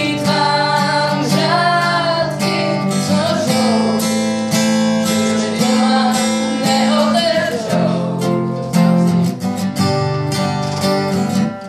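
A young woman singing while strumming an acoustic guitar. The singing stops near the end, leaving the guitar strumming on its own.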